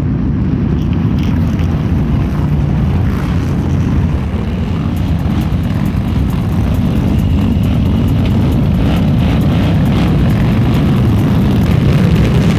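A pack of Harley-Davidson V-twin motorcycles riding past together, their engines making a loud, steady drone that swells slightly near the end.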